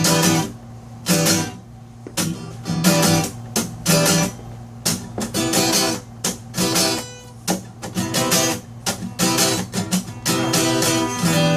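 Acoustic guitar strummed in a rhythmic chord pattern, the instrumental close of a song with no singing. A final chord is struck near the end and left ringing.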